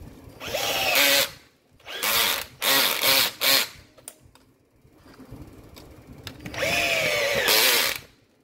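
A power-tool motor run in five short bursts, each a fraction of a second to about a second and a half long. The pitch rises and falls within the longer bursts, and it stops fully between them.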